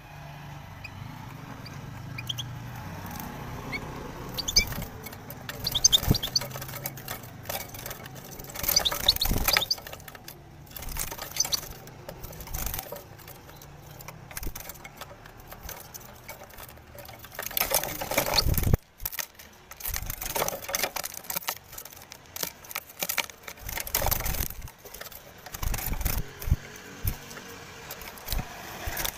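Wire bird cage rattling and scraping in irregular bursts as a common kestrel attacks it and the caged European goldfinch flutters against the bars in panic, with a few short high chirps early on.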